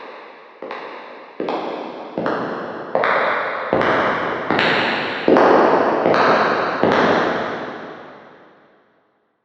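Footsteps at a steady walking pace, about ten steps roughly three-quarters of a second apart, growing louder as they approach. Each step echoes, and the last step's echo fades away over about two seconds.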